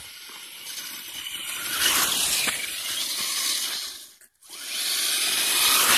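Traxxas Stampede 2WD RC truck's electric motor whining and its tyres hissing through wet slush on the road, growing louder as it comes closer. The sound cuts out briefly a little after four seconds, then comes back just as loud.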